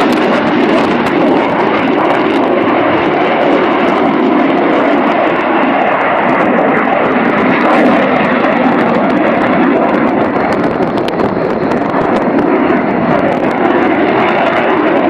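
Fixed-wing aircraft flying, its engine a loud, steady noise that wavers slightly without letting up.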